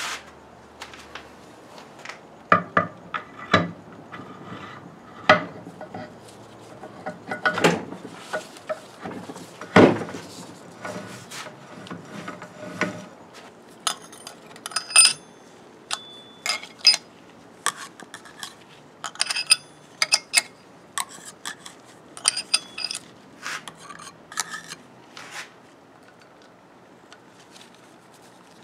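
Ford Model T transmission parts being fitted by hand: steel gears, a drum and washers knocking, clinking and rubbing against each other and the flywheel. The first half has duller knocks; from about halfway the clinks are sharper and ringing.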